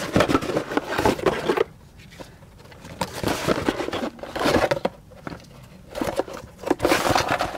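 Cardboard brake pad box and its paper insert being handled and rummaged through, rustling and scraping in irregular bursts with short pauses.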